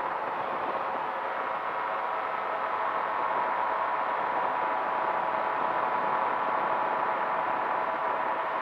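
Powered parachute's engine and pusher propeller running steadily in cruise flight, an even drone with a faint steady hum.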